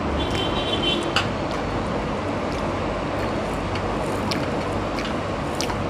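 Electric fan running, a steady whooshing noise, with a few short clicks from eating rice and greens by hand off a plate.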